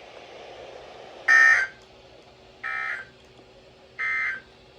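Emergency Alert System end-of-message data signal: three short, harsh bursts of two-tone digital data, each about half a second long and about 1.3 s apart. The first is the loudest. It marks the end of the alert broadcast.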